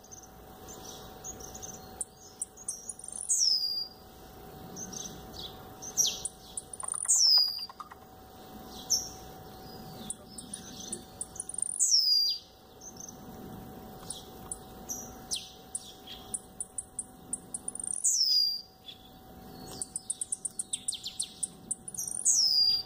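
Caged blue-black grassquit (tiziu) singing its short song about five times, a few seconds apart: each phrase is a quick run of dry ticks ending in a high note that falls in pitch.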